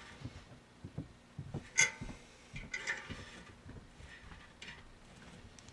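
A few light metallic clicks and knocks from a spigot valve being handled on an aluminum brew kettle. The sharpest, with a short ring, comes about two seconds in.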